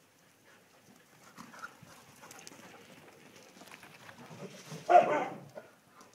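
A dog gives one short, loud call about five seconds in, amid faint scattered scuffs and taps.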